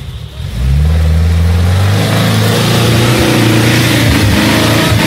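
UAZ-469 engine revving up sharply a little under a second in, then holding at high revs under load as the vehicle drives off.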